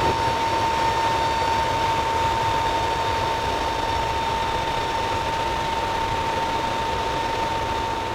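Steady engine noise of a transport aircraft heard from inside its cabin during flight, with a constant whine held throughout.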